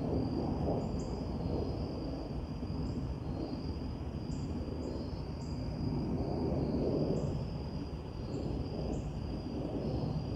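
Outdoor ambience in trees: insects trill steadily and thinly, with short higher chirps repeating about once a second, over a louder low rumbling noise that swells and fades.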